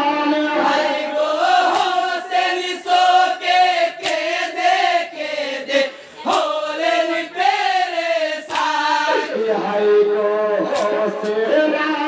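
Men singing a Bengali marsiya (jari gaan) lament for Hasan and Husayn, a lead male voice on a microphone with other voices chanting along.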